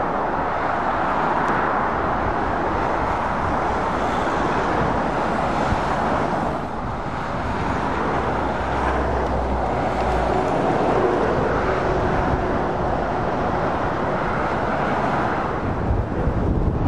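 Traffic on a dual carriageway passing close by: a steady rush of tyre and engine noise from lorries and cars, with a deeper lorry engine rumble swelling about halfway through.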